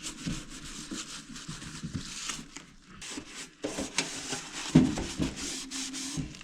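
Scrubbing toothpaste on the greasy glass door of a toaster oven: a quick, repeated scratchy rubbing of strokes, with a louder knock about three-quarters of the way through.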